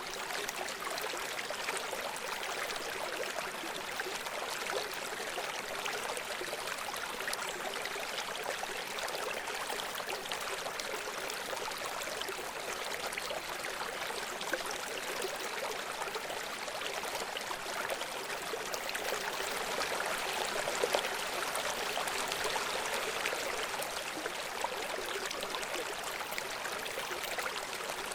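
River water running over rocks: a steady rushing hiss made of many small splashes, with little low rumble.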